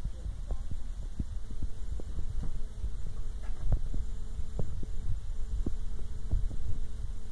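Low, uneven rumble of wind buffeting the microphone, with scattered small clicks and a faint steady hum in the background.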